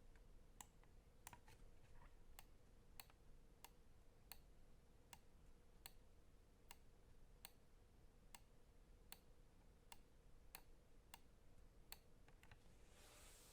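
Endorfy GEM Plus Wireless gaming mouse clicking: faint, sharp single clicks at a steady pace, roughly one every half second, with a short hiss near the end.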